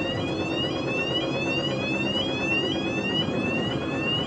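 Level-crossing barrier alarm sounding: an electronic tone that sweeps upward over and over, about two to three times a second, without a break.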